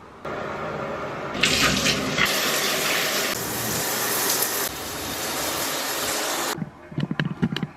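Water running from a tap into a sink, louder about a second and a half in, then shut off abruptly; a few short clicks and knocks follow near the end.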